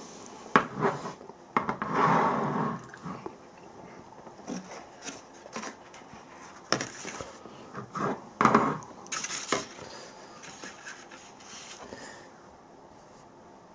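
Opened tin cans and paper bowls being moved and set down on a wooden table: scattered light knocks and clicks, a scrape lasting about a second starting about two seconds in, and another cluster of knocks about seven to ten seconds in.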